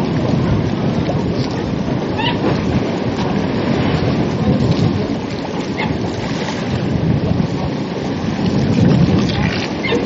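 Wind blowing across the microphone as a steady, loud rush, with ocean surf washing beneath it.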